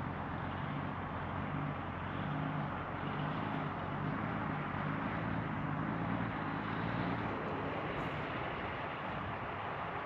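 Vehicle engine running steadily, its low hum fading about seven seconds in, over a steady rushing outdoor noise.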